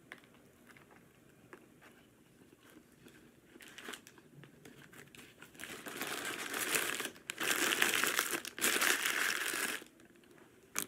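Paper fast-food wrapper crinkling as it is handled and crumpled. The sound comes in three spells of about a second each over the second half.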